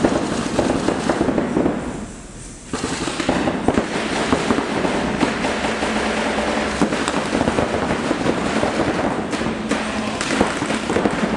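Paintball markers firing rapid, overlapping volleys of shots, with a brief lull about two seconds in.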